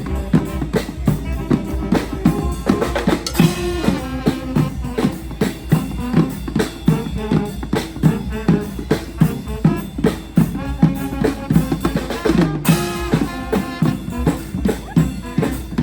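Street band playing live: horns carrying a melody over a steady drum beat with bass drum and snare.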